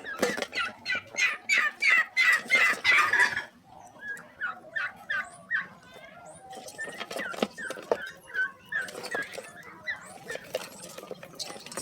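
Animal calls: a rapid series of short, repeated calls, about five a second for the first three seconds or so, then scattered calls.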